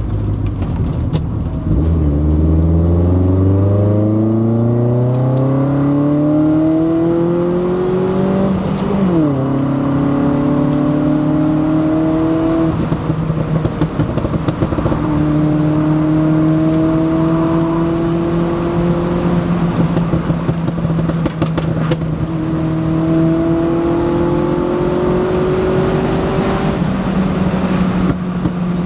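VW Golf MK1's 2.0 16-valve ABF four-cylinder, on individual throttle bodies with a Supersprint 4-2-1 exhaust, heard from inside the cabin under acceleration. The revs climb several times, dropping sharply at a gear change about nine seconds in, and a few sharp cracks come from the exhaust.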